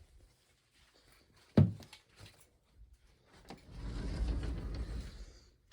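Household handling noises: a single sharp thump about one and a half seconds in, then about two seconds of rushing, rustling noise.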